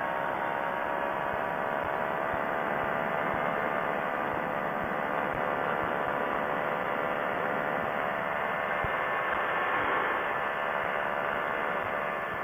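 Quicksilver ultralight's engine and propeller running steadily in low-level flight, heard from on the aircraft with a wash of wind noise over it.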